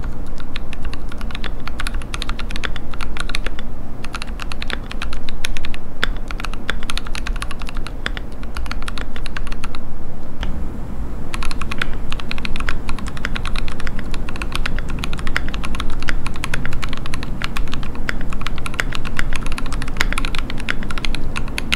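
Fast typing on a KBDfans D65 custom mechanical keyboard with an aluminium case, brass weight, lubed switches and PBT keycaps: a dense, continuous run of keystrokes, with a short pause about ten seconds in.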